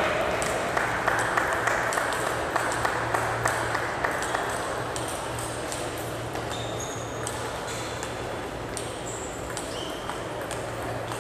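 Applause in the hall dying away over the first few seconds, followed by short high squeaks of players' shoes on the court floor and light ticks of the table tennis ball.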